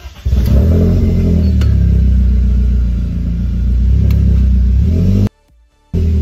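BMW Z3's engine catching suddenly and running at a steady, loud idle, then cut off abruptly about five seconds in.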